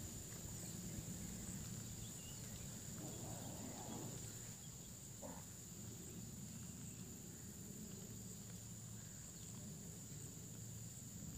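Night insects chirring in a steady, high, even drone over a faint low rumble.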